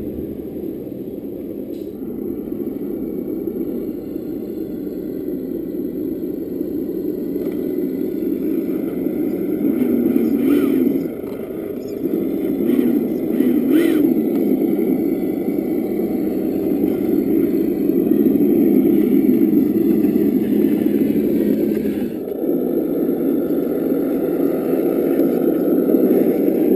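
Simulated truck engine sound from an EssOne sound module in a Tamiya CC-01 Unimog RC crawler, running steadily as the truck crawls and swelling and dipping with the throttle, with a sudden drop about eleven seconds in.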